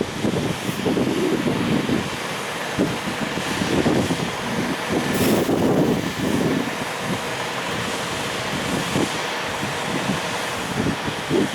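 Wind buffeting the microphone in irregular gusts over the steady rolling noise of a freight train's container wagons, with a few short knocks.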